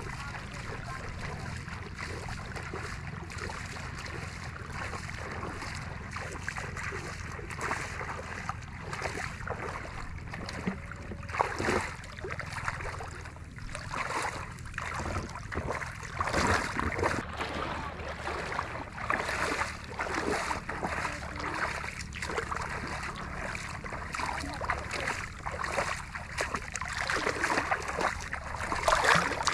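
Water sloshing and splashing in irregular bursts, growing louder and busier from about a third of the way in, over a steady low rumble.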